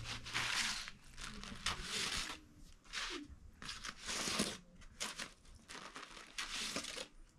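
Dry, crisp lavash flatbread sheets crackling and rustling in a series of short, irregular bursts as they are handled and sprinkled with water to soften them.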